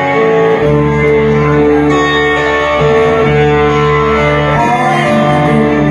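A live band playing an instrumental passage: electric guitar and long held notes over bass guitar, with the bass line coming in about half a second in.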